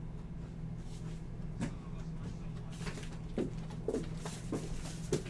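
About six light knocks and clicks, spread out irregularly, over a steady low hum.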